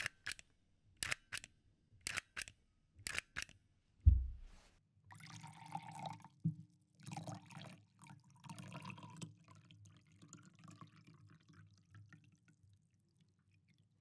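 Foley sound effects: short sharp taps in pairs about once a second, then a single heavy low thump about four seconds in, followed by several seconds of irregular, water-like noise that fades away.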